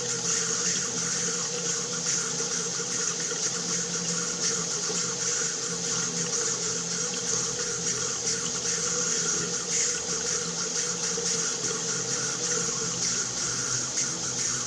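Water running steadily from a tap: a constant, unchanging rush of water.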